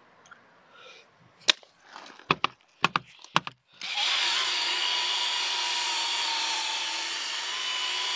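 A handful of sharp clicks, then, about four seconds in, a cordless drill starts up and runs steadily with a constant whine, spinning a polishing pad against car paintwork to cut back scratches with compound.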